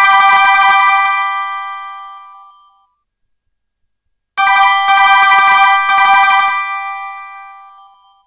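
An LG GX200 ringtone played on a Nokia 220 mobile phone: chiming, bell-like electronic notes that ring and die away over about two seconds, a pause of about a second and a half, then another group of three quickly struck notes about four seconds in that fade out near the end.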